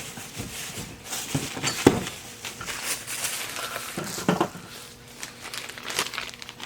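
Rustling and crinkling of packing material, with scattered light knocks, as vintage sewing machine parts are handled and rummaged through in a box.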